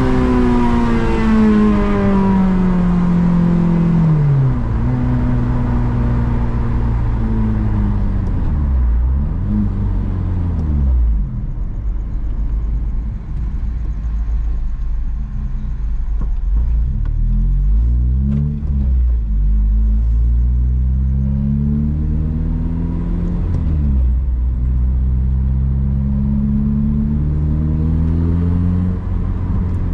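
Honda Civic Si engine under way: the engine note falls as the car slows, swoops down and up a couple of times, settles low, then climbs steadily under acceleration, drops sharply at a gear change about two-thirds in and climbs again.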